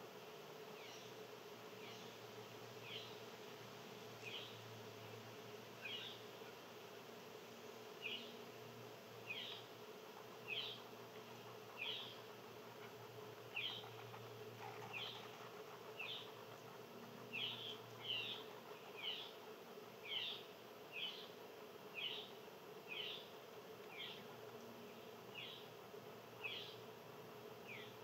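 A small animal calling: short, sharp downslurred chirps repeated about once a second, sometimes in quick pairs, over a steady low hum.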